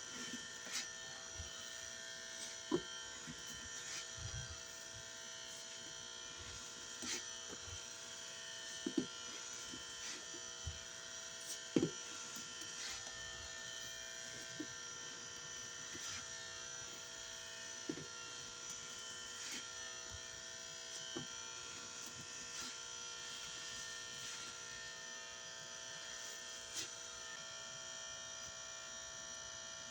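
Steady electrical buzz from a fluorescent light, several high tones held throughout, with scattered soft wet squishes and clicks from a soapy sponge being squeezed by hand.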